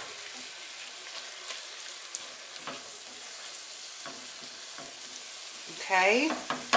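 Browned ground meat sizzling steadily in a stainless steel pan while a spatula stirs it, with a few short scrapes of the spatula against the pan.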